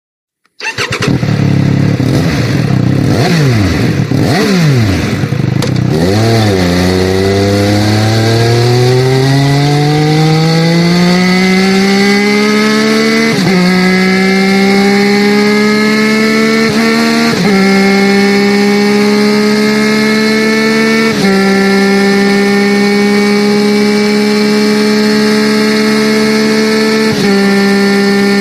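Triumph Speed Triple 1200 RS's 1160cc inline three-cylinder engine, heard through its exhaust. It cuts in with a few quick blips of the throttle, then the note climbs steadily in pitch for several seconds and levels off into a high, steady drone, broken by a brief dip every few seconds.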